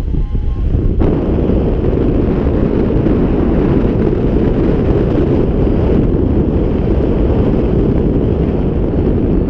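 Steady wind rushing over the microphone in paraglider flight, growing stronger about a second in. A few faint variometer beeps sound at the start.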